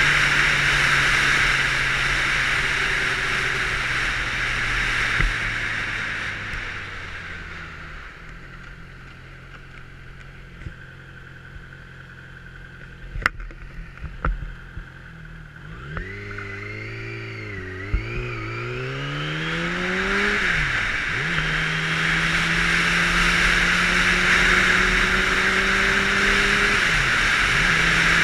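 Wind rushing over a helmet-mounted camera on a 600 cc motorcycle. It fades as the bike slows, leaving the engine running low with a few sharp clicks. The engine then revs up through the gears, its pitch climbing and dropping back at each shift, before settling into a steady cruise as the wind noise builds again.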